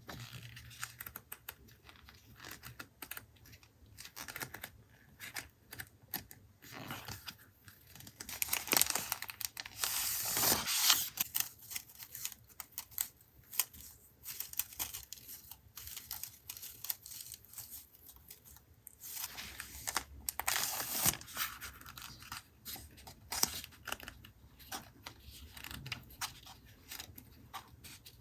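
Paper handled by hand: crinkling and tearing with many small taps and clicks, louder stretches of rustling and tearing about a third of the way in and again about two-thirds in.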